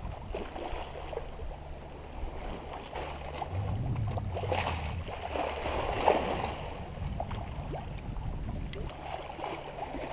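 Water rushing and lapping along a sailboat's hull under sail, with wind buffeting the microphone. The rush of water swells louder for a few seconds about midway, then settles back.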